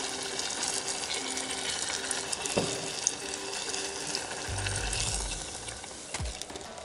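Battered banana pieces deep-frying in hot oil, giving a steady sizzle, with one light click about two and a half seconds in.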